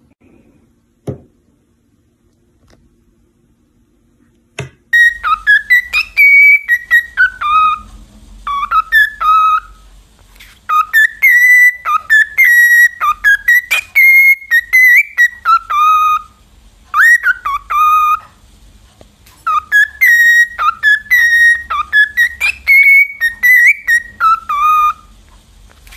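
A parrot whistling a tune: repeated phrases of clear notes that glide up and down, starting about five seconds in after a couple of soft knocks.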